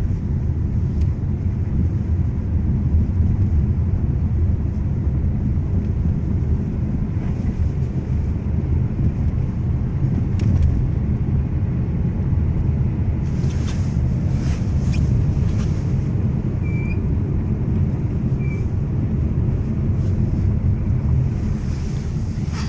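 Lada Vesta SW Cross driving, a steady low road and running rumble with a few short knocks scattered through, several in the second half: the suspension knock the owner is recording.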